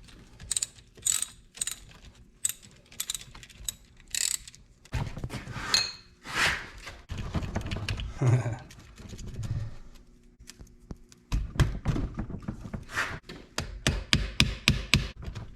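Metallic clicks and knocks of tools and engine parts being handled, irregular at first, with a fuller stretch of handling noise in the middle and a quick run of clicks near the end.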